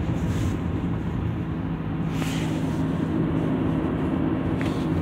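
Steady engine hum and road noise heard inside a moving car's cabin, with a brief whoosh about two seconds in.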